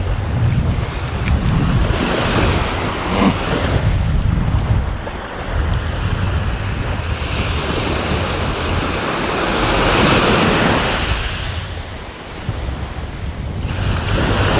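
Small surf breaking and washing up a sandy beach, the wash swelling twice, the second time longer, about halfway through. Wind rumbles on the microphone underneath.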